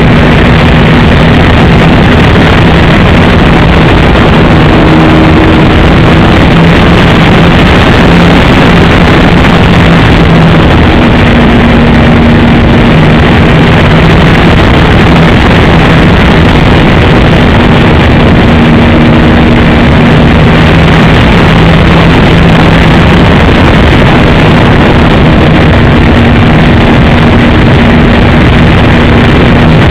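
Engine of a radio-controlled Piper J-3 Cub model airplane droning in flight, its pitch shifting up and down as it comes and goes, under a loud steady hiss that fills the recording.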